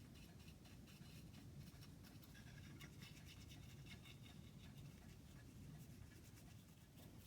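Faint, rapid scratchy strokes of a hand carving tool cutting into cherry wood, over a low steady hum.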